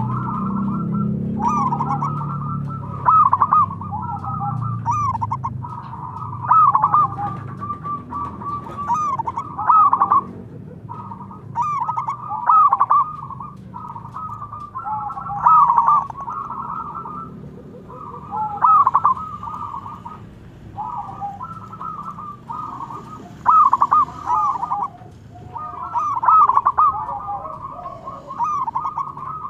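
Zebra doves (perkutut) cooing, several calls overlapping and answering one another. Their quick, trilling coo phrases go on without a break, with louder phrases every second or two.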